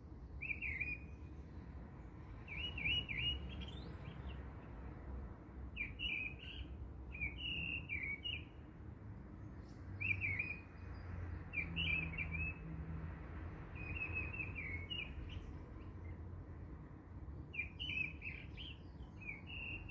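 Small bird chirping: short bursts of quick high notes, one every second or two, over a low steady rumble.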